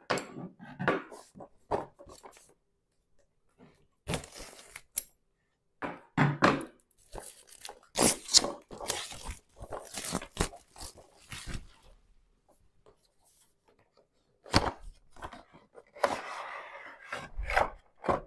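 Plastic shrink wrap being torn and crinkled off a cardboard board-game box, in irregular bursts of tearing and rustling with short pauses between, along with the box being handled.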